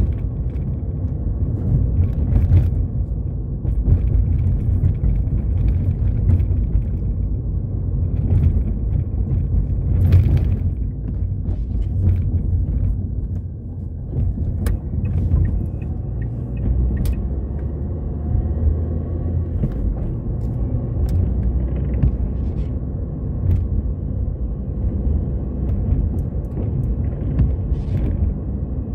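Car cabin noise while driving: a steady low rumble of engine and tyres on the road, easing briefly about halfway through, with a few faint clicks.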